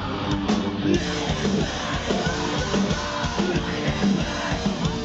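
A rock band playing loud live music, with fast drums and guitars, heard from within the audience.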